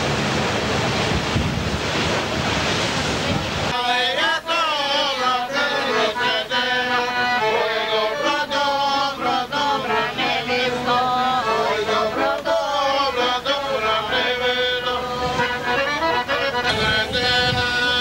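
Wind and sea rushing on a boat deck for the first few seconds, then a sudden cut to music: a voice singing a wavering melody over held accompanying notes.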